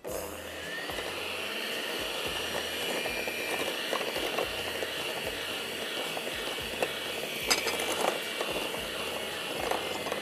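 Electric mixer switched on and running steadily, beating butter and icing sugar into frosting; it starts abruptly and keeps an even motor whirr.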